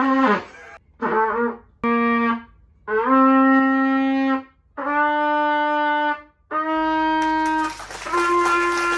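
Trumpet played by a beginner: a row of separate held notes stepping upward like a scale, the first few short and wavering, the later ones longer and steadier. A rushing noise joins in near the end.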